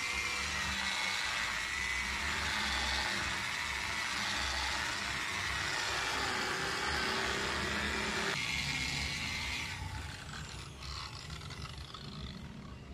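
Angle grinder with a polishing pad running against the edge of a natural granite countertop, a steady whine with the pad rubbing on the stone; the grinder is run through a 110-volt adapter so it turns less aggressively. It stops about ten seconds in.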